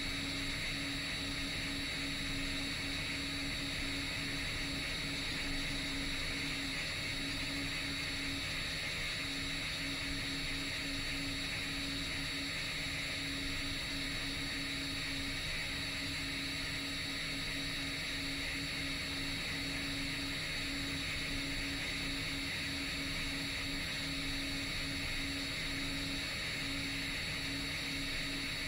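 A 10-inch FPV quadcopter's motors and propellers running steadily in flight: a constant hum and whine that holds the same pitch throughout.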